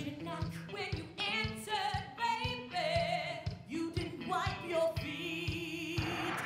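Recorded song with sung vocals over a steady drum beat.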